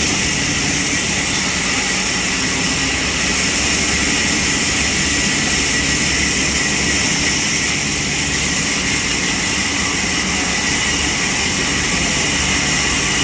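Sawmill machinery running steadily, a loud, even rush of machine noise with a low hum beneath it that holds unchanged throughout.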